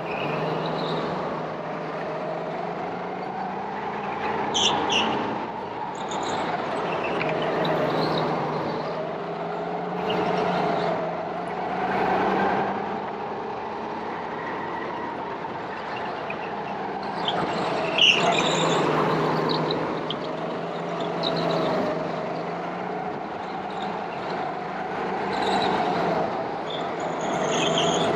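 Go-kart engines running, their pitch climbing and dropping as they accelerate and slow through the corners. There are brief high squeaks, and a short sharp noise about two-thirds of the way through is the loudest moment.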